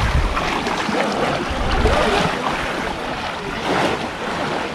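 Muddy pond water sloshing and splashing steadily as several people wade through it waist-deep and grope for fish by hand.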